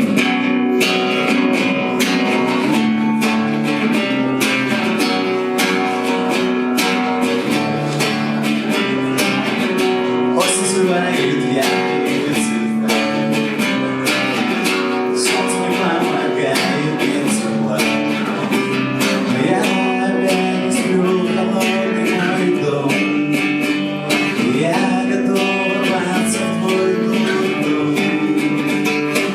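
Guitar strummed in steady, repeated chords, playing a song live.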